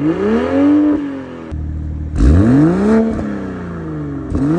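BMW M240i's turbocharged 3.0-litre inline-six revved at standstill through a stainless-steel aftermarket exhaust: two quick blips that rise and fall back, with a third starting near the end.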